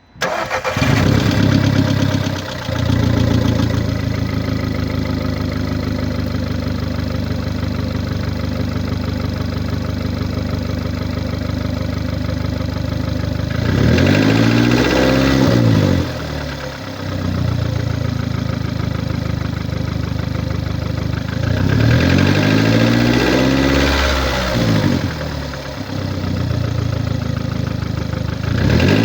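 2009 VW Golf Mk6's 1.4 TSI (CAXA) four-cylinder petrol engine starting up and settling to a steady idle, then revved up and back down twice, with a third rev beginning near the end. Its running noise is put down by the seller to a failed cylinder head gasket.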